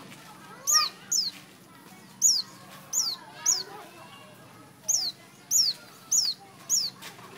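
Everett's white-eye calling: about nine short, high notes, each falling quickly in pitch, spaced irregularly, with a run of four in quick succession in the second half.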